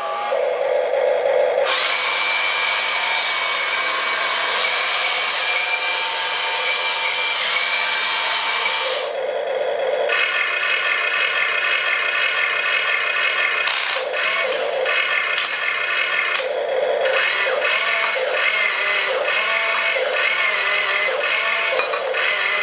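RC excavator's electric motors and gearboxes whining as the boom, arm and bucket move, starting, stopping and changing pitch in several runs, with clicks from the gears in the later runs.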